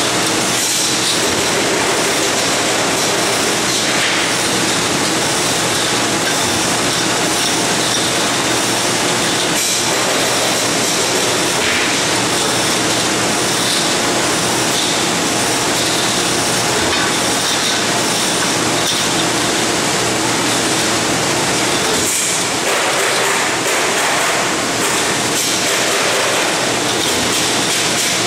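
Loud, steady din of workshop machinery: a dense hiss with a low hum underneath, and a few faint knocks and clinks of metal parts being handled.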